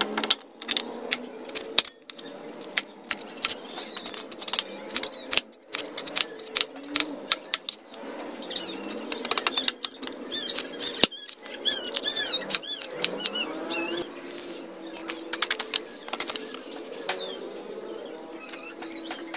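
Knife clicking against a plastic cutting board as sweet potato is peeled and cut into wedges, many irregular sharp clicks, with bursts of high chirping in the background.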